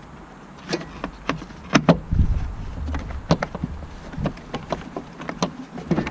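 Irregular sharp clicks and knocks, about a dozen, with two loud ones close together just before two seconds in, from tools and car parts being handled.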